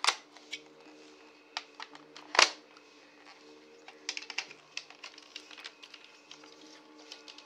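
Hard plastic clicks and clacks as Nerf Elite Stryfe blaster parts and attachments are handled and fitted together. The clicks are irregular, with the loudest clack about two and a half seconds in and a quick run of clicks about four seconds in.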